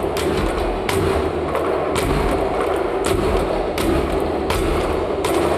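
Plastic wheelie bin played as a drum with sticks: a dense run of heavy thuds, with sharp accented strikes about once a second.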